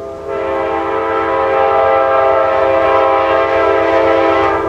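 A train's multi-note air horn sounding one long, steady blast that starts just after the beginning, over the low rumble of the approaching train.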